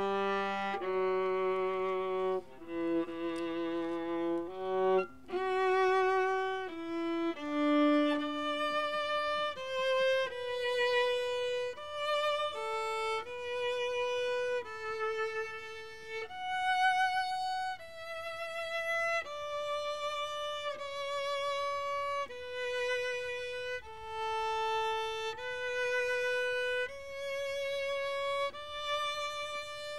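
Bowed string music: a slow melody played one long note at a time with vibrato. It starts low and climbs into a higher register after about five seconds.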